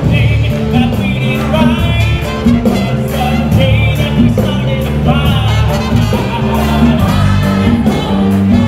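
Live worship music: voices singing over a band with a bass line and a steady beat.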